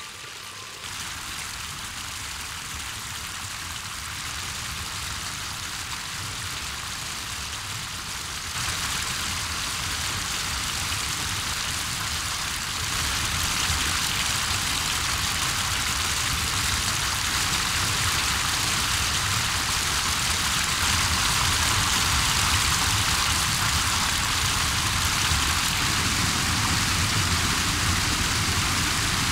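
Waterfalls and a cascading creek rushing steadily, a constant noise of falling water that steps up louder about a second in, again around eight seconds, and again around thirteen seconds.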